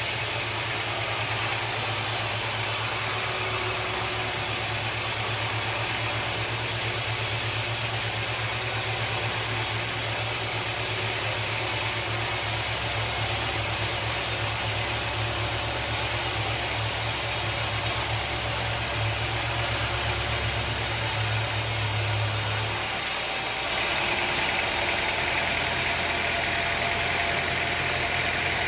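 Sawmill machinery running steadily: a low hum under a constant hiss. About twenty-three seconds in, the hum drops away and the sound shifts.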